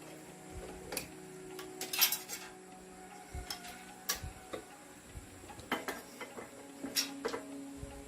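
Irregular light metallic clicks and clinks of hand tools and small metal parts being handled during tractor repair work, with a louder clatter about two seconds in.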